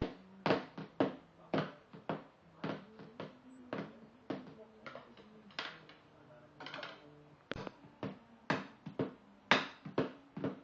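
A toddler drumming on a padded table: an uneven beat of sharp hits, about two a second.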